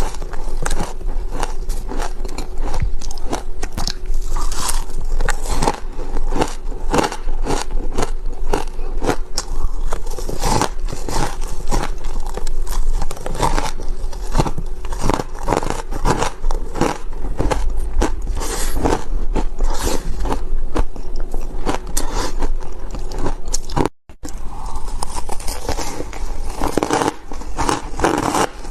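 Close-miked biting and chewing of crunchy ice chunks dusted with powdered milk and matcha: a dense, continuous run of sharp crunches. A brief gap of silence comes about 24 seconds in.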